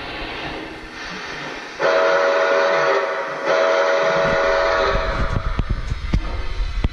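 Train horn sounding two long blasts with a short break between them, over the rumble of a train; after the horn, the train rumbles on with sharp clicks and knocks.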